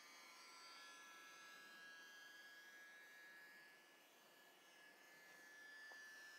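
Faint whine of a distant electric RC plane's motor and propeller, its pitch slowly shifting as the plane flies by.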